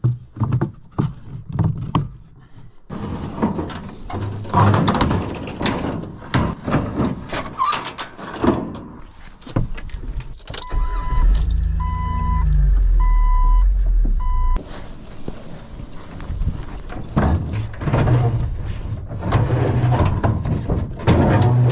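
A vehicle's warning chime beeps four times, evenly, about a second apart, over a steady low rumble about halfway through. Around it come knocks, clunks and rattles of handling and moving about the vehicle.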